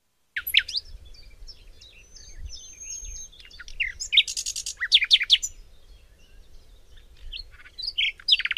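Birds singing: a mix of short whistles, chirps and warbled phrases over a faint low rumble, with a rapid trill starting near the end.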